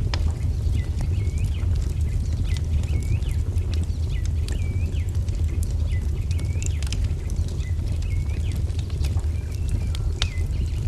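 Wood fire crackling with sharp pops over a steady low rumble, while a bird repeats a short chirp about once a second.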